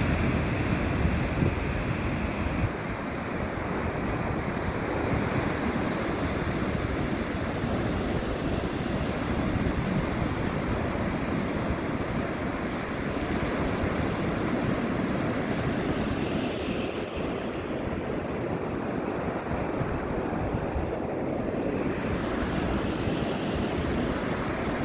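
Surf washing onto a sandy beach, a steady wash of noise, with wind buffeting the phone's microphone.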